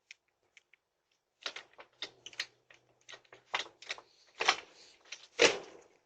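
Irregular clicks and taps, sparse at first and then denser, with two louder knocks about four and a half and five and a half seconds in, heard through a doorbell camera's microphone.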